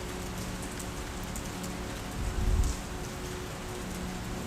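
Steady rain falling, with a brief low rumble a little past halfway.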